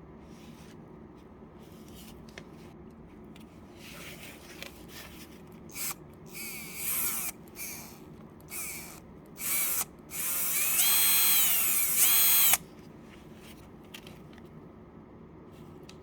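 Electric drill, built with 3D-printed gears, run in a series of short trigger bursts. Its whine spins up and down in pitch with each burst. It then runs for about two and a half seconds and cuts off suddenly.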